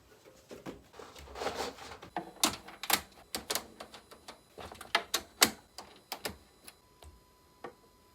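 Irregular sharp clicks and taps, with a short scrape about a second in, from a blade and tools on a work surface while leather is cut for coasters.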